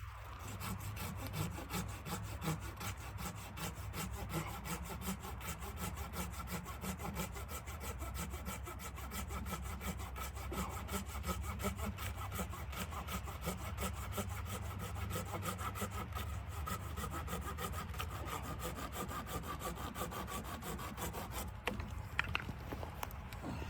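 Hand saw cutting through wood with steady, continuous strokes.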